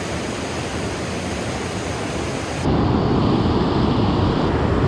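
Creek water rushing over a cascade of rock ledges, a steady loud rush. A little past halfway it switches abruptly to a louder, deeper rush.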